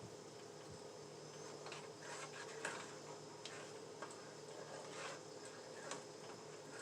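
Faint, scattered light clicks and ticks from cooking at the stove, over a steady low hum.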